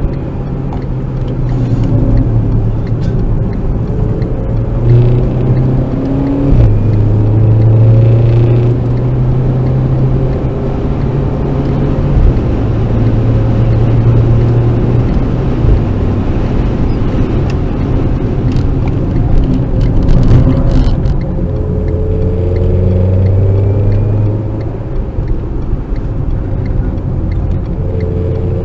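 Renault Clio RS 1.6-litre turbo four-cylinder heard from inside the cabin at racing pace, its engine note climbing in pitch under acceleration and dropping back at gear changes and braking, over steady road and tyre rumble.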